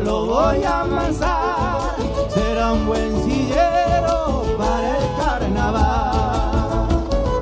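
Live Argentine folk band music in the chaqueñada/chamamé style: a lead melody with wide vibrato over acoustic guitar, bass and a steady drum beat.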